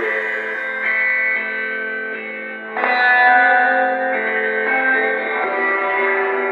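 Background music: electric guitar chords with effects, changing about every second, with a louder chord about three seconds in.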